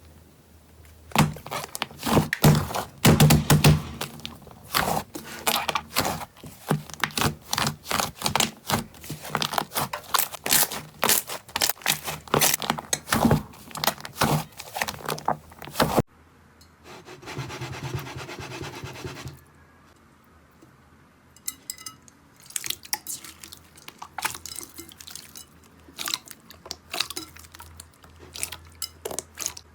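Slime being squeezed and poked by hand, giving a fast run of sticky crackling pops and clicks. After an abrupt cut about 16 seconds in, there are a few seconds of steady rubbing, then sparser pops and clicks.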